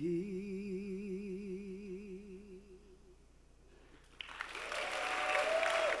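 A woman's voice holds a final sung note with wide vibrato, fading out over about three seconds. After a short hush, about four seconds in, the theatre audience breaks into loud applause and cheering.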